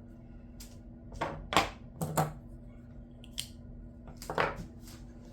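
Handling sounds: a series of light clicks and knocks as small objects are picked up and set down on a work surface, over a faint steady hum.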